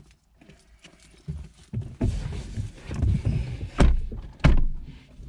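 Rustling and bumping inside a car as a man settles into the driver's seat, with two sharp knocks or clicks less than a second apart near the end.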